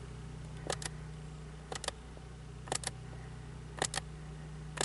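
Short plastic button clicks about once a second, one of them a quick double click, as the car's trip-computer menu is stepped through toward the tire pressure readout, over the steady low hum of the engine idling.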